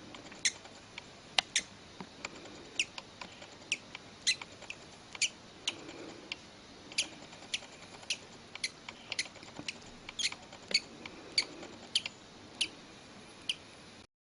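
A newly hatched bird chick peeping: short, high, falling cheeps repeated irregularly, about one or two a second.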